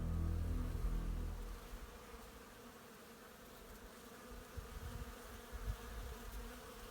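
Many bees buzzing together in a steady drone. Soft background music fades out in the first second and a half.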